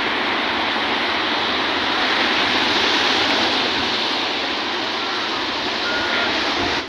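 Sea surf churning and washing over shoreline rocks: a steady rush of breaking white water.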